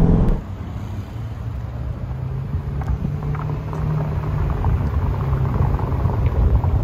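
Chevrolet C8 Corvette Stingray's mid-mounted 6.2-litre V8 running at low revs as the car rolls slowly, a steady low rumble.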